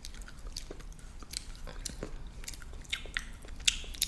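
Close-miked mouth sounds of a person chewing a BeanBoozled jelly bean: irregular wet clicks and smacks, one sharper click near the end.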